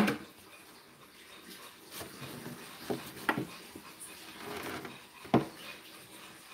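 A few soft knocks and clicks from handling the cracked plastic truck armrest and the steel console, the sharpest about three and five seconds in.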